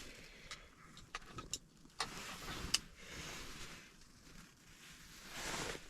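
A few sharp clicks and knocks in the first three seconds, then a swell of rustling near the end, as gear is handled in a small enclosed space.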